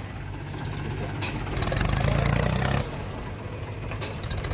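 Heavy diesel engine running steadily, growing louder with a rush of noise for about a second and a half in the middle before settling back.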